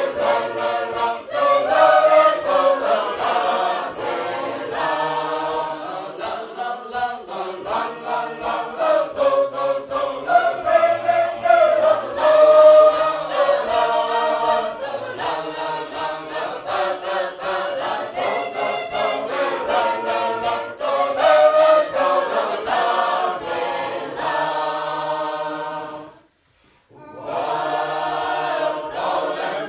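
Sacred Harp shape-note choir singing in parts, unaccompanied, with a brief halt near the end before the singing goes on.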